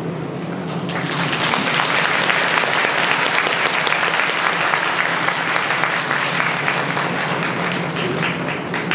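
Audience applauding, starting about a second in and carrying on steadily as dense clapping, over a steady low hum.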